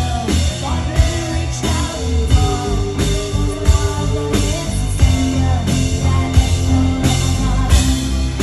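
Live rock band playing a slow song: a female lead vocal sings a gliding melody over bass and a drum kit keeping a steady beat of about one hit every two-thirds of a second.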